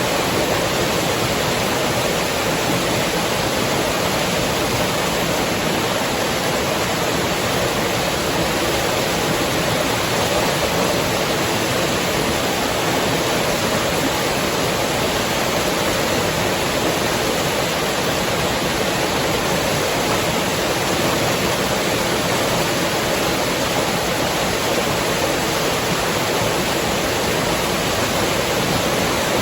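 River water rushing steadily, a continuous even rush with no breaks.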